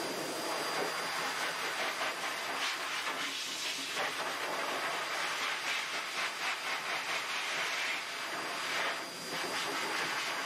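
Steady rushing hiss from a hand-held grooming hose nozzle played over a wet Maltese's coat in a bathtub.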